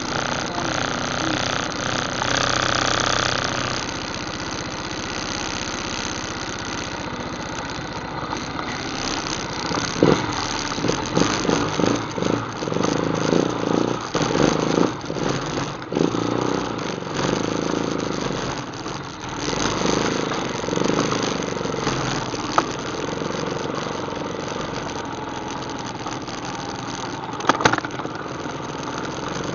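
ATV engine running on a trail ride. Its sound swells and dips unevenly for a stretch in the middle, with a few sharp knocks.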